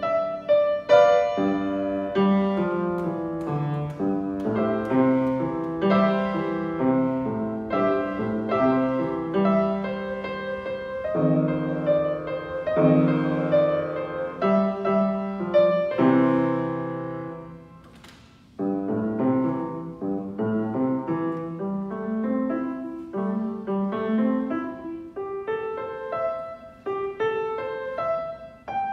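Upright piano played four hands as a boogie-style duet, brisk repeated notes and chords in the bass and treble. About two-thirds of the way through the playing briefly stops, then resumes with a climbing run of lower notes.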